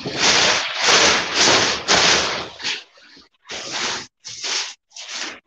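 Loud rustling and rubbing noise close to the microphone, coming in uneven bursts with short breaks.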